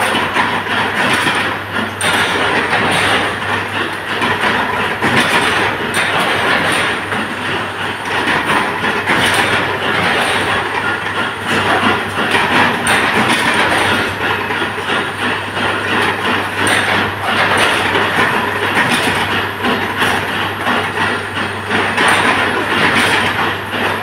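25 kW induction forging machine running under load: a steady low electrical hum with a loud, uneven clattering noise over it.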